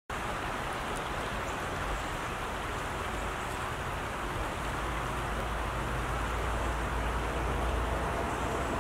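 Steady rush of creek water running over a shallow, rocky riffle.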